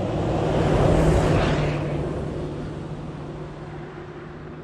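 Pickup truck driving up a sand road, its tyre and engine noise swelling to a peak about a second in and then easing off as it slows alongside, with the engine's steady hum carrying on.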